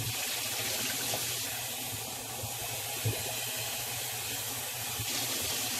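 Kitchen tap running steadily into a bowl of raw shrimp in the sink as they are rinsed, with one light knock about three seconds in.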